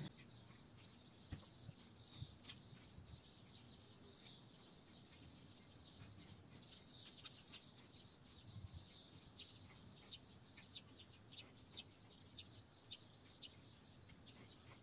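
Faint outdoor ambience: small birds and insects chirping, with many short high chirps that grow busier partway through. A few soft low thuds sound now and then.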